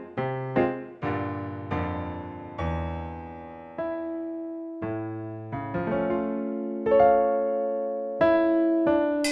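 Piano music: single notes and chords struck and left to ring out and fade, a quick run of notes at first, then about one chord a second. A sharp, bright strike comes near the end.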